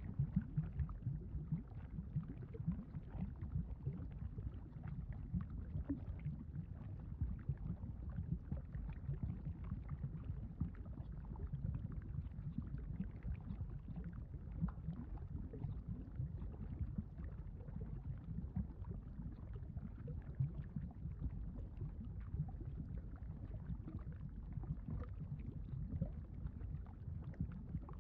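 Low, steady rumbling with a dense fine crackle, a molten-lava sound effect.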